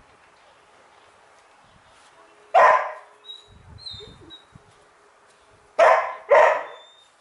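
A dog barking three times: one single sharp bark, then two more close together a few seconds later.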